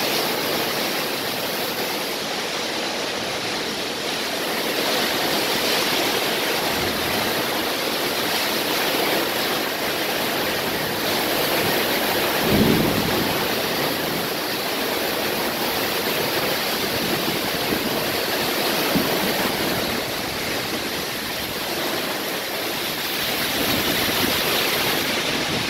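Hard, heavy rain pouring down in a dense, steady hiss, with one brief low thud about halfway through.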